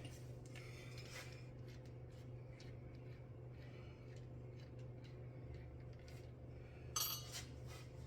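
Faint metallic clinks and light rattles of tools and car parts being handled, with a sharper clatter about seven seconds in, over a steady low hum.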